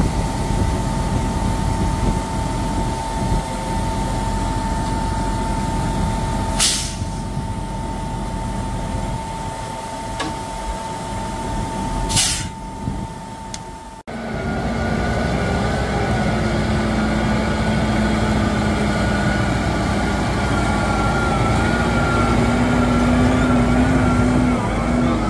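Case 315 tractor engine running steadily with a constant whine, broken twice by short hisses of escaping air. Its engine then runs on under way, the pitch rising slightly near the end.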